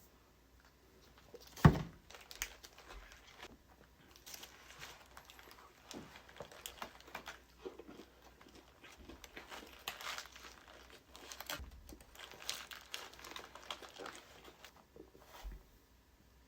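Close-up eating with food packaging being handled: crinkling and crackling with scattered small clicks, and one sharp knock a little under two seconds in.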